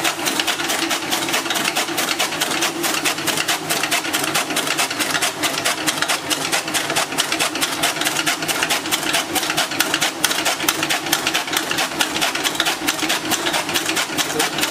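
Powered flywheel chaff cutter chopping green fodder grass: a rapid, even clatter of the cutting blades that keeps up steadily.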